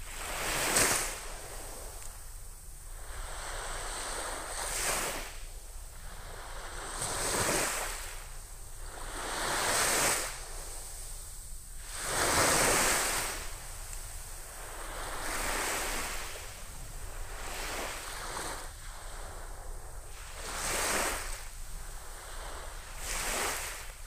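Small waves breaking and washing up a sandy beach, the hiss of surf swelling and fading every two to three seconds.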